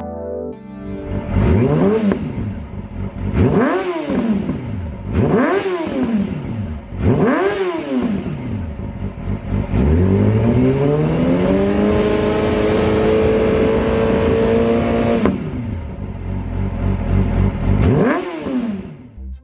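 Yamaha YZF-R6's 600cc inline-four engine breathing through a Lextek full exhaust system with OP1 silencer, revved on a standing bike. Four quick throttle blips that rise and fall back to idle, then the revs climb and are held high for about four seconds before dropping back, and one more blip near the end.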